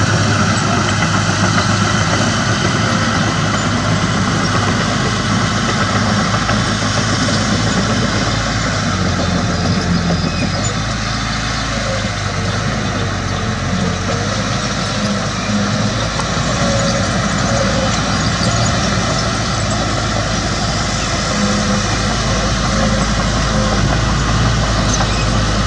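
Heavy diesel engine of earthmoving machinery running steadily, its low engine note shifting a few times as the load changes.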